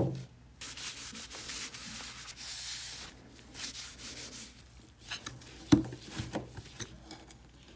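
A sharp knock, then a shop towel rubbing steadily over a polished steel vise base for a couple of seconds. Later, clicks and scraping of a flat metal tool prying at the rim of a body filler can, with a sharp metallic crack, the loudest sound, as the lid pops.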